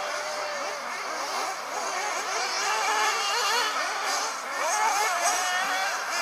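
Several radio-controlled off-road racing buggies' small engines whining together, each rising and falling in pitch as they rev, brake and accelerate around the track. The mix gets a little louder in the middle.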